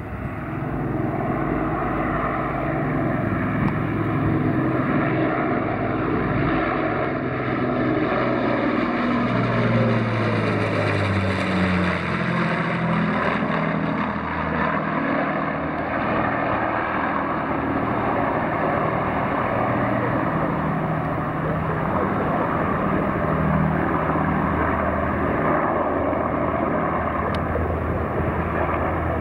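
Avro Lancaster B1's four Merlin piston engines roaring as the bomber flies past low overhead. The engine note falls in pitch about ten seconds in as it passes, then carries on steadily as it banks away.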